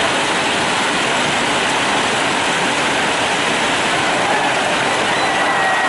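Steady rushing hiss of outdoor noise, even in level throughout, with a faint high tone coming in near the end.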